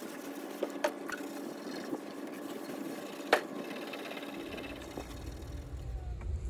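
Abrasive scuff pad scrubbing back and forth over the painted steel skin of a VW Bus door, rubbing off black paint softened with paint remover. A few sharp clicks come through, the loudest about three seconds in, and a low rumble comes in for the last two seconds.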